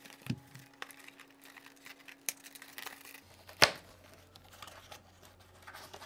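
Cardboard box being handled and opened: light taps, scrapes and rustles as the inner box slides out of its sleeve, with one sharper tap about three and a half seconds in.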